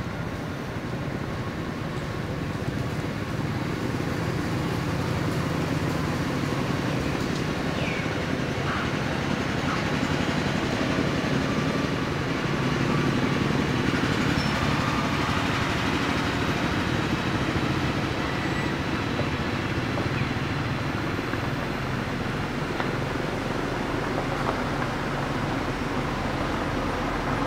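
Steady low background rumble, with a few faint high chirps now and then.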